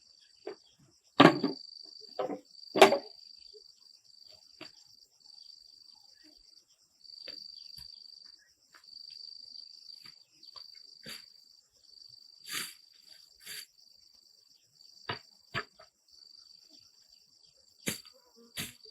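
Insects trilling steadily in a high, thin band, broken into long phrases with short gaps, over scattered sharp knocks and thuds, the loudest two about one and three seconds in.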